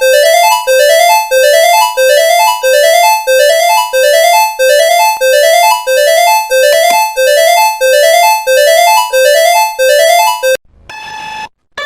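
Synthesized emergency-alert alarm tone: a short rising electronic tone repeated about one and a half times a second, loud and steady, cutting off suddenly near the end.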